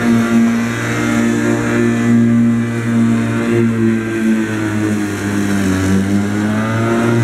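Corded electric rotary lawnmower running steadily while being pushed over grass. Its pitch sags briefly about five to six seconds in, then picks back up.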